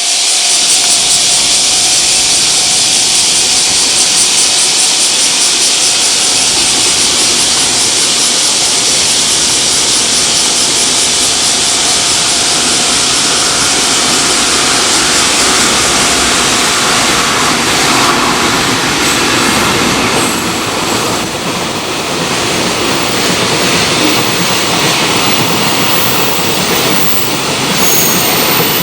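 Long JR Freight train running through a station at speed: a loud, steady rush of wheels on rail with a steady tone that fades out about seventeen seconds in.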